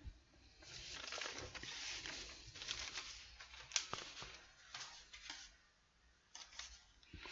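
Faint rustling and scattered small clicks close to a microphone, in irregular bursts with a short pause near the end.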